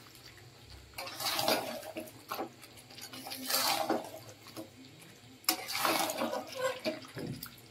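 Metal spatula stirring and scraping chicken pieces through thick frying masala in a kadhai, in several uneven strokes. The masala is being fried down with the chicken.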